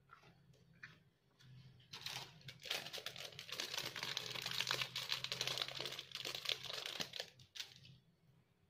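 Clear plastic sheet being crinkled and crumpled by hand: a dense crackle that starts about two seconds in and stops shortly before the end, with a few faint clicks before it.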